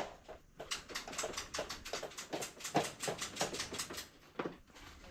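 A quick, uneven run of knocks, taps and scrapes from someone clambering up makeshift coconut-wood scaffolding, several a second for about three seconds, then a couple of knocks near the end.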